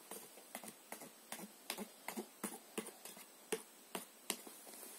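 Toy hammer tapping on the cardboard nails of a board book: a quick, uneven run of light taps, about three a second, with the hardest two near the end.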